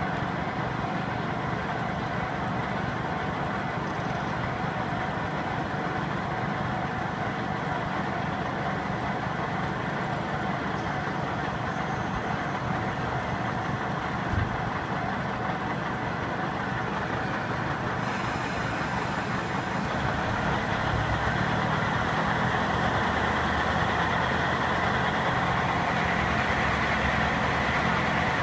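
KiHa 40 diesel railcar's engine idling steadily while the train stands at the station, with a single short knock about halfway through. From about two-thirds of the way in the engine note strengthens as the railcar pulls away.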